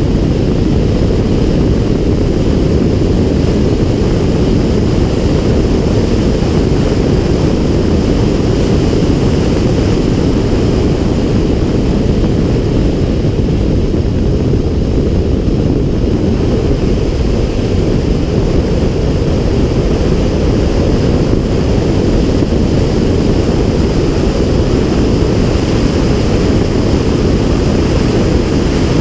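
Steady, loud wind buffeting on the camera's microphone as a car drives at track speed.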